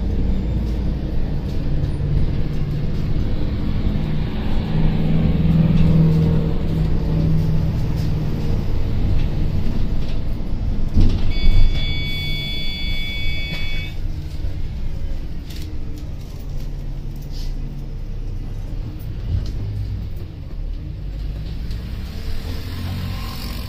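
Volvo Caio Procity city bus under way, heard from inside: a continuous engine and road rumble that swells for a few seconds near the start. About eleven seconds in there is a knock, followed by a high, steady multi-tone whine lasting about two and a half seconds.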